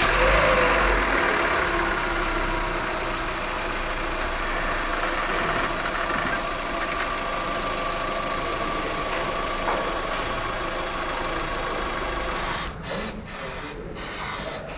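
Lada Vesta's 1.8-litre four-cylinder engine (VAZ-21179) idling just after being started, a little louder at first and easing to a steady idle within a couple of seconds; a few brief drops in the sound near the end.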